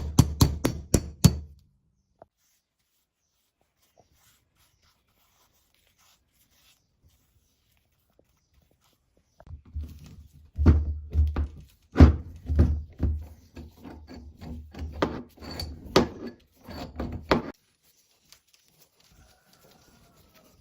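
Metal knocking and clunking from the anvil vise being worked: a quick run of sharp knocks in the first second or so, then after a silent gap of several seconds, about eight seconds of irregular knocks and heavy clunks.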